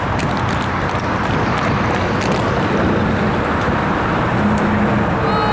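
Steady, loud outdoor background noise with a heavy rumbling low end, and a few faint sharp taps in the first couple of seconds.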